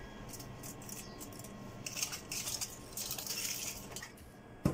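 Handling of an electric sandwich press lined with aluminium foil: light rustling and small clicks, then one sharp click near the end as the press lid is shut.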